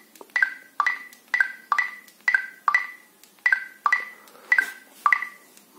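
Xiaomi Poco F1 (MIUI) lock and unlock sounds: short electronic click-tones, about two a second and about a dozen in all, as the phone is locked and unlocked by fingerprint over and over.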